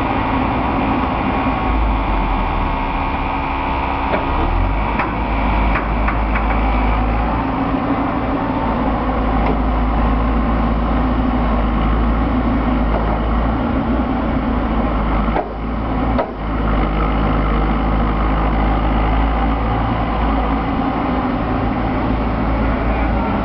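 Diesel engine of a Terex Atlas 1305 LC crawler excavator running steadily. About two thirds of the way through, the sound briefly drops with a couple of knocks.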